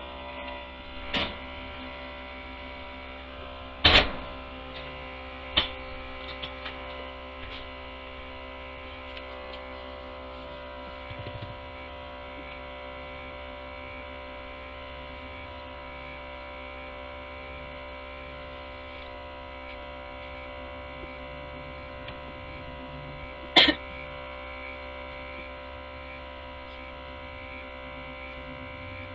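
Milking machine running with a steady motor hum while its teat cups milk a Nigerian Dwarf goat. A few sharp knocks stand out over it, the loudest about four seconds in and another near twenty-four seconds in.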